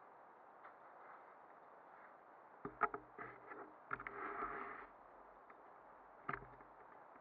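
Handling noise: a cluster of knocks and clicks, then a brief rustle, with one more knock near the end, over a faint steady hiss.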